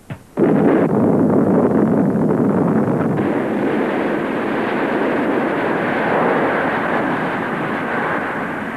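Cartoon sound effect of a volcano erupting: a loud, rough rumble that starts abruptly and slowly dies away toward the end.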